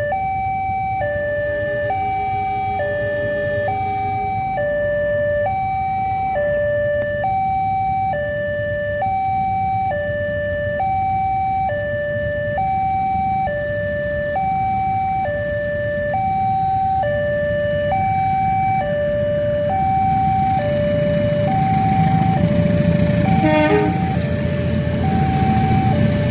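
Railway level-crossing warning siren sounding a steady two-tone hi-lo wail, switching between a lower and a higher tone about once a second, the signal that a train is approaching and the barriers are down. In the last few seconds a low rumble grows louder beneath it.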